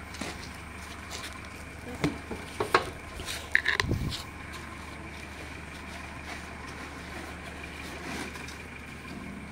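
Handling noise: a cluster of short knocks and rustling clicks about two to four seconds in, ending in a low thump, over a steady low hum.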